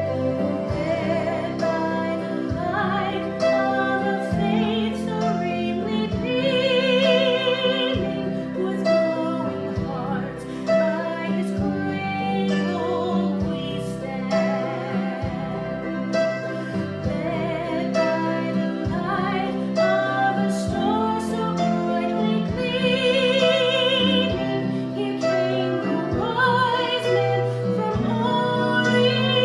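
Music: a sung melody with wide vibrato over steady instrumental accompaniment.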